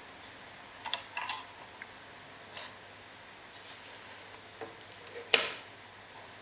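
A few light clicks and taps of something being handled, the sharpest about five seconds in, over a faint steady low hum.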